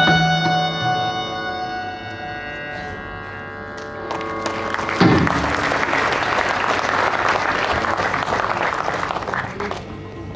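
The last held notes of a two-violin Carnatic ensemble fade away over the first few seconds. About five seconds in there is a thump, and audience applause follows, dying down near the end.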